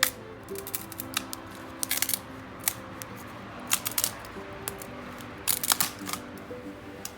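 Burning scrap wood crackling and popping in irregular sharp snaps, some in quick clusters, over light background music.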